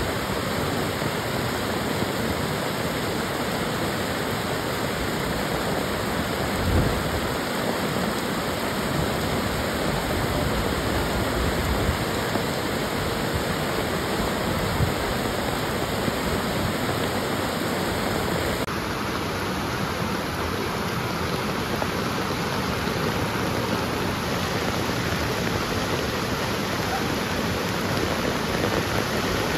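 Heavy rain and rushing floodwater, a steady wash of water noise that changes tone abruptly about two-thirds of the way through.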